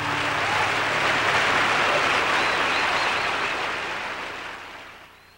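Applause with a few faint whistles, swelling and then fading out.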